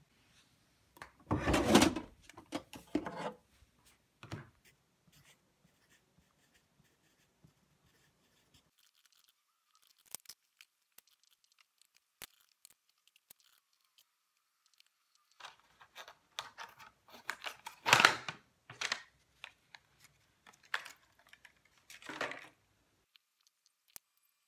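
Close handling noises from paper and packaging on a desk, coming in irregular bursts, the loudest about two seconds in and again around eighteen seconds in, with a quiet stretch of faint taps in between.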